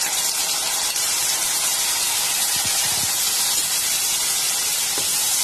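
Oil sizzling steadily in a steel kadai as garlic, curry leaves, green chillies, red chilli powder and freshly added red chilli sauce fry in it.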